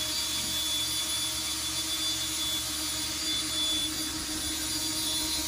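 Milwaukee 18-volt cordless drill running at a steady speed with a high whine as it turns the crank rod of a Coolaroo roller shade, lowering the shade.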